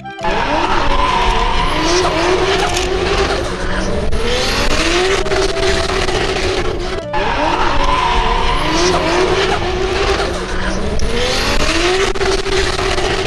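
Race car engine revving up again and again, as if through the gears, with tyre squeal and skidding; the sequence breaks off briefly about seven seconds in and starts over.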